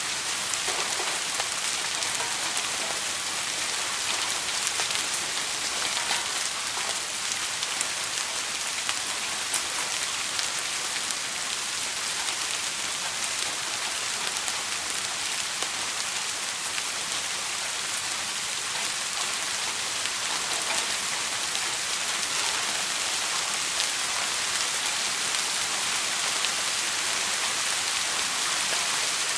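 Steady rain, an even hiss with scattered faint ticks.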